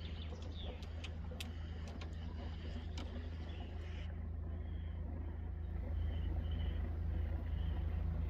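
A steady low hum, like a motor running, with small birds chirping over it and a few sharp clicks in the first three seconds.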